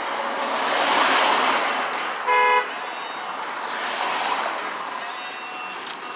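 Road traffic noise with a vehicle passing about a second in, then one short car horn toot a little over two seconds in.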